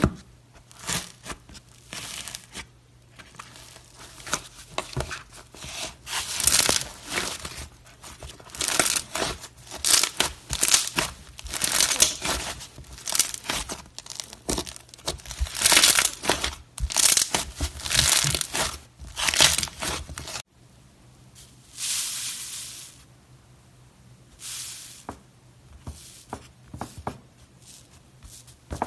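Iceberg slime crackling and crunching as fingers break its dried crust and stretch the foamy slime beneath: dense runs of quick crinkly crunches. After a sudden break about two-thirds of the way through, only a few separate crunches follow as fingers press into the crust.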